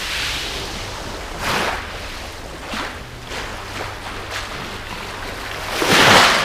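Sea waves washing onto a shingle beach in a steady rush, with a louder wave surging in about six seconds in.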